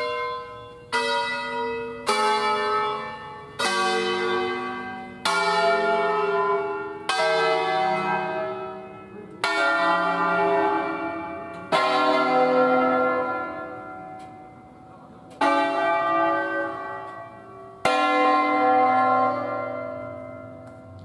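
Bronze church bells of an eight-bell concerto in C, mostly cast by Luigi Cavadini in 1925, swung on their wheels by hand ringers and struck one at a time, about ten strokes on different notes. Each stroke rings out and fades before the next. The gaps between strokes lengthen as the bells come to rest and the peal winds down.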